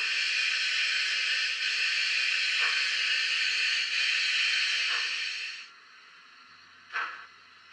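Sound-fitted OO gauge model Mogul steam locomotive's decoder playing a long, steady steam hiss from its small speaker. The hiss stops about five and a half seconds in, and a few short puffs of exhaust follow.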